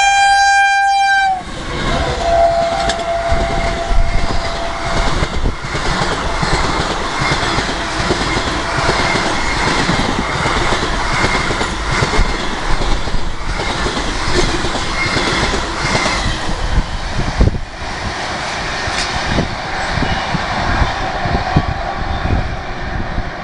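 WAG-5P electric locomotive's horn blaring, cutting off about a second in, with a fainter tone for a few seconds after. Then the express train runs past at high speed, its wheels clattering over the rail joints in a continuous loud rush.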